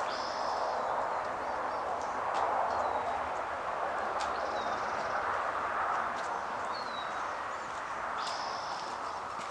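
Steady rush of distant highway traffic, with several short, high bird chirps, some falling in pitch, scattered through it.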